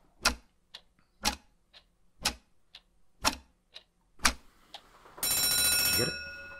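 Countdown clock sound effect: a tick-tock with a louder tick and softer tock alternating about twice a second, then an alarm bell ringing for about a second as the countdown runs out, fading near the end.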